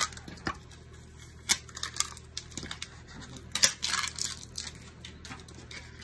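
Scissors snipping through laminated glossy photo sticker paper: a string of separate sharp snips and crackles of the stiff sheet, with the loudest run about three and a half seconds in.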